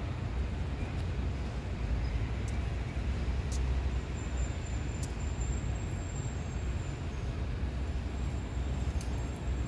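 Steady low rumble of city traffic, with a faint high thin tone near the middle and a few faint clicks.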